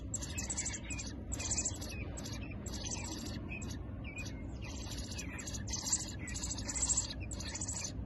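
Nestling American robins giving short, high begging calls in a steady series, about two or three a second, asking to be fed. A low steady hum runs underneath.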